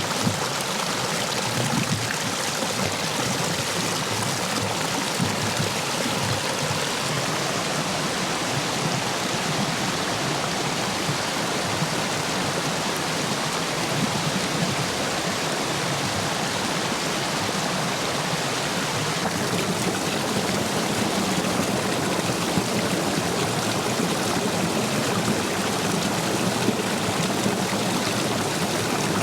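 Stream water rushing through and over a line of stepping stones, a steady dense rush; the stream is running full after heavy rain.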